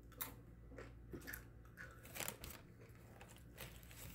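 A person chewing crunchy food close to the microphone, with several irregular crisp crunches.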